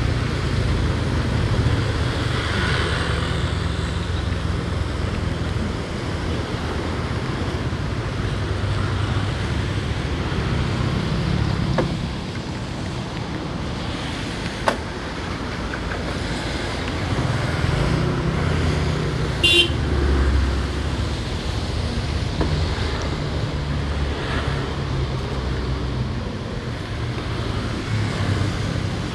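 Motorcycle riding through traffic: the engine runs with shifting revs under steady wind and road noise, with a brief high-pitched beep about two-thirds of the way through.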